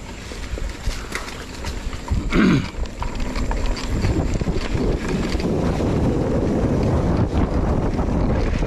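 Wind buffeting the microphone over the rattle of a mountain bike's tyres and frame on a dirt trail, with scattered knocks, getting louder about four seconds in. A brief falling sound about two and a half seconds in.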